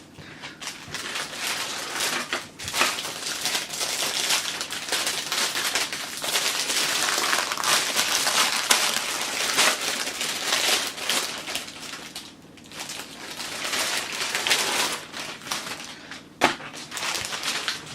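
Plastic packaging of a packet of tortilla wraps crinkling and rustling in uneven bursts as it is handled, with a few brief lulls.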